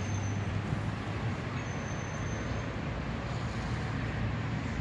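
Steady road-traffic noise: a low hum under an even hiss.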